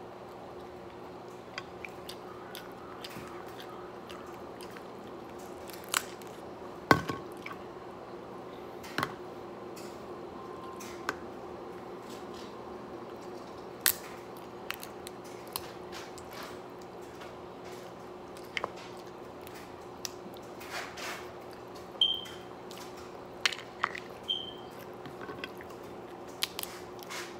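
Crab leg shells being cracked and pulled apart by hand, with wet squishing and chewing and sharp cracks and clicks scattered throughout, the loudest about seven seconds in. A steady faint hum runs underneath.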